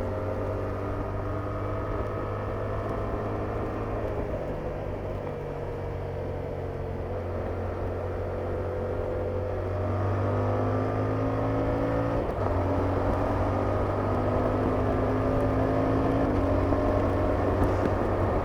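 Yamaha R7's 689 cc parallel-twin engine through its stock exhaust, running under way at a steady, slowly shifting pitch. It grows louder about ten seconds in, with a brief break in the note soon after.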